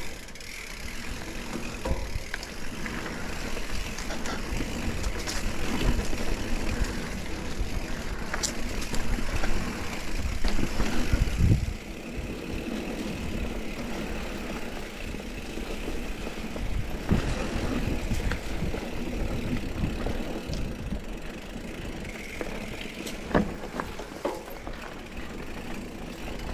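Mountain bike riding down a rocky trail: tyres running over rock and gravel with frequent knocks and rattles from the bike over bumps. It is louder up to about twelve seconds in, then eases off.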